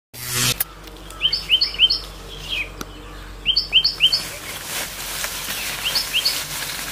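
A bird calling outdoors in short runs of three quick, high chirps, repeated several times over a steady background hiss. A brief electronic beep sounds at the very start.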